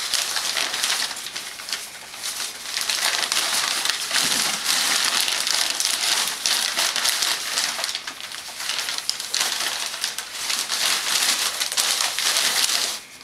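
Large sheet of brown kraft packing paper being pulled, bunched and crumpled by a baby's hands, a continuous loud rustling and crinkling that stops abruptly near the end.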